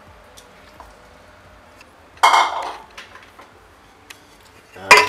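Two loud clatters of a stainless steel mixing bowl being handled, about two seconds in and again near the end, the second ringing briefly.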